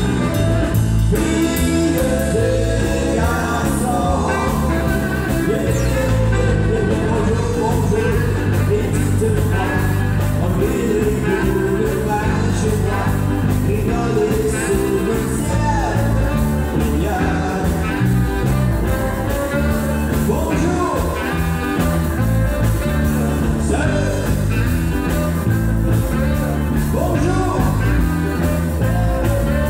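A man singing into a microphone with a live band of electric guitar, saxophone and keyboard, amplified through stage speakers.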